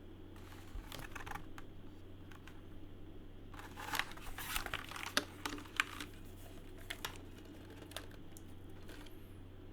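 Typing on a Filco Majestouch 2 TKL mechanical keyboard with stock Cherry MX Hyperglide Brown switches, PBT keycaps and an aluminium plate: irregular key clacks, thickest from about four to six seconds in and sparser before and after.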